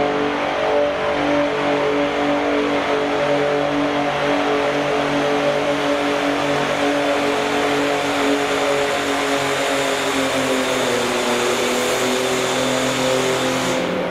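Diesel engine of a John Deere garden pulling tractor running hard under load as it drags the weight-transfer sled. The note holds steady, then sags gradually lower over the last few seconds.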